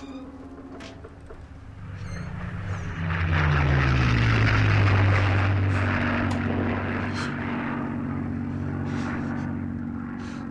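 Propeller aircraft engines droning overhead. They swell up about two to three seconds in, drop a little in pitch as they pass, then slowly fade.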